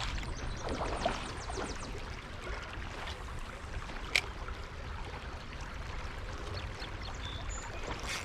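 Shallow creek water running steadily, with wind rumbling on the microphone. A quick run of faint ticks comes in the first two seconds and a single sharp click about four seconds in.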